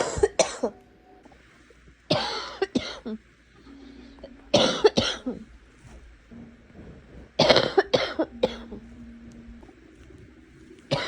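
A person who is sick coughing in repeated bouts of two or three quick coughs each, about every two and a half seconds.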